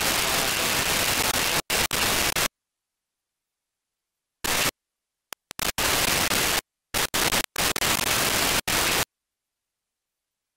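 Narrowband FM receiver hiss from a software-defined radio tuned to an L-band satellite downlink, cutting in and out abruptly as the squelch opens and closes. A steady stretch of static is followed by several short bursts of hiss with dead silence between them.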